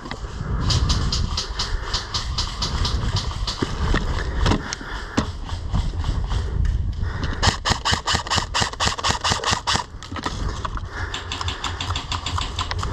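Airsoft M4 rifles firing on full auto in rapid rattling bursts of about ten shots a second. The longest and densest burst comes about two-thirds of the way through, over a steady low rumble.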